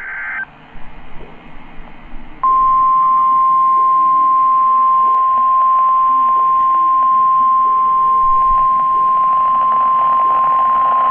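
NOAA Weather Radio warning alarm tone (the 1050 Hz tone): one long, loud, steady beep starting about two seconds in and lasting about nine seconds, over faint radio hiss. The tone signals that a warning message is about to be broadcast.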